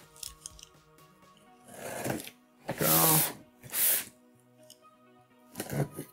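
Packing tape being slit and torn off the top of a cardboard box, in four short ripping bursts, over faint background music.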